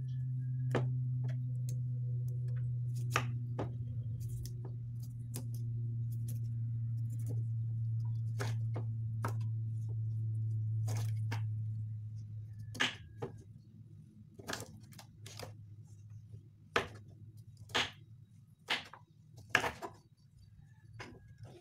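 Kitchen knife cutting broccoli into florets on a wooden cutting board: irregular clicks and taps of the blade striking the board, louder in the second half. A low steady hum sits under the first twelve seconds or so, then fades away.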